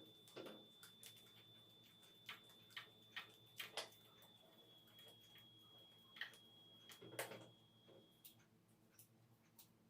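Near silence with faint, irregular clicks and light taps, over a faint high steady whine that stops about eight seconds in.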